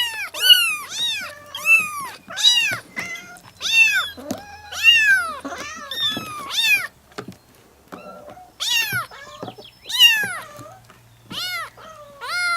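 Several kittens meowing, high meows that rise and fall in pitch. They overlap thickly for about the first seven seconds, then after a short pause come one at a time.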